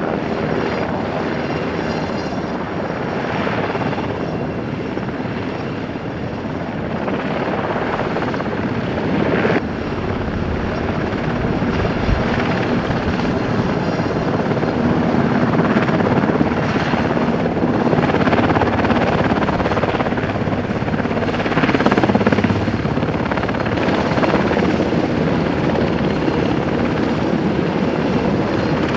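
Helicopter rotor and engine running steadily and loudly, growing a little louder after about eight seconds.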